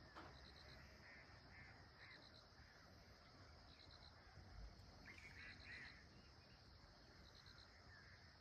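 Faint outdoor ambience: an insect chirping in short pulsed trills about every one and a half seconds over a steady high insect drone, with a few brief bird calls around a second and five seconds in.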